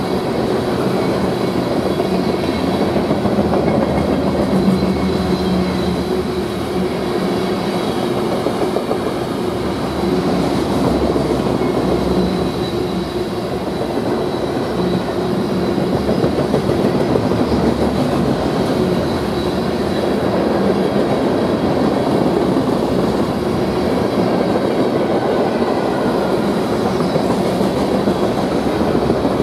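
Loaded covered hopper cars of a sand train rolling past, a steady, loud noise of steel wheels running on the rails. A faint thin high ringing tone runs over it.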